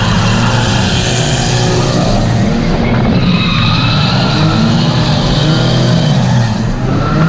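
Car engines held at high revs through a tandem drift, heard from the bonnet of the chasing car. From about three seconds in, tyres squeal as the Volvo wagon ahead slides and smokes its rear tyres.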